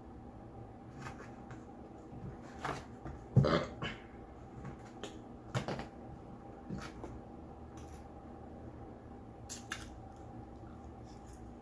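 A single loud burp about three seconds in, lasting around half a second, among faint clicks and small eating noises.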